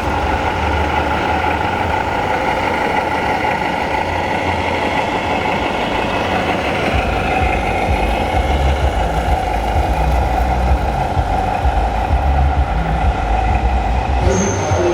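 Scale RC model truck running with a steady, idling truck-engine drone.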